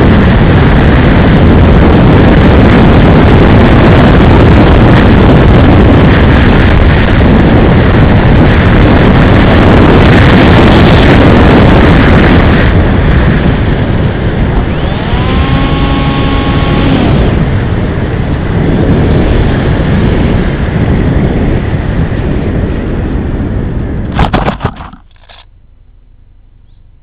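RC airplane in flight, heard through its onboard camera's microphone: a loud, distorted rush of wind and propeller noise that eases a little about halfway, with a brief motor whine that rises and then holds for a second or two. Near the end the plane comes down into grass with a couple of knocks, and the noise cuts off abruptly, leaving only a faint hum.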